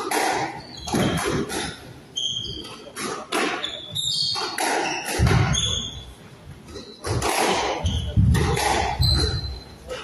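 Squash rally on a wooden-floored court: sharp strikes of racket on ball and ball on the walls, shoe soles squeaking briefly on the floor, and heavy thuds about five and eight seconds in. The rally ends near the end.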